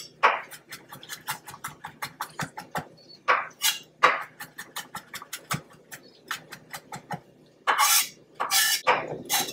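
Chef's knife mincing fresh ginger on a wooden cutting board: quick, uneven taps of the blade against the board, several a second, broken by a few louder, longer scraping sounds.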